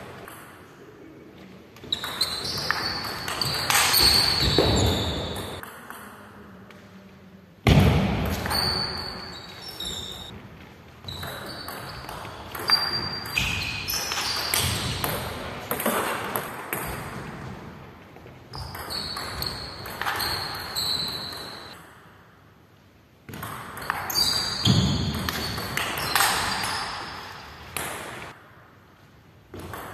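Table tennis rallies: the celluloid-type plastic ball clicking sharply back and forth off the paddles and the table, echoing in a large hall. Several separate points are played, with short pauses between them.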